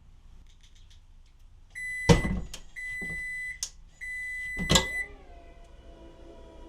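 Car front trunk (frunk) being operated: three long high-pitched beeps, each under a second, with loud clunks of the lid and latch among them. Just after five seconds in, a steady humming tone starts, dipping slightly in pitch as it settles.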